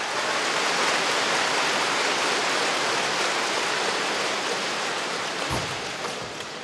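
Steady, even hiss of arena crowd noise, easing slightly near the end, with one dull thud about five and a half seconds in.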